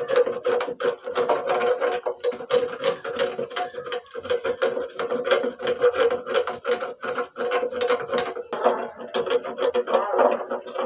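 A spatula stirring thick lentil dal and scraping against the sides and bottom of an aluminium pot, in quick repeated rasping strokes.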